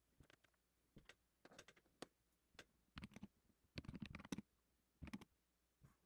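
Faint typing on a computer keyboard: short clusters of keystrokes with brief pauses between them, as a few short commands are typed.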